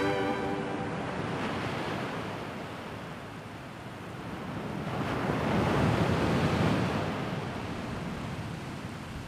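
A soft rushing noise like surf or wind, left after the song's held synth tones stop at the start. It fades, swells again in the middle, and dies down.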